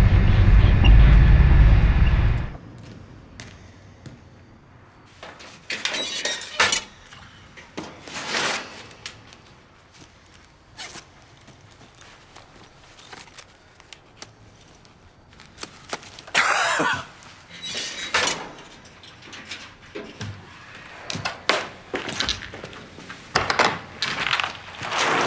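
Low, steady rumble of a car on the move, cutting off suddenly about two seconds in. Then a quiet stretch of scattered thuds, knocks and clicks, with a few louder knocks spread through the rest.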